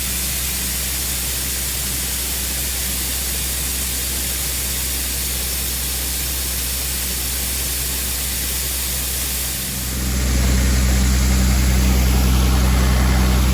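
Farm machinery engine running steadily under a loud, even hissing rush. About ten seconds in the engine sound grows louder.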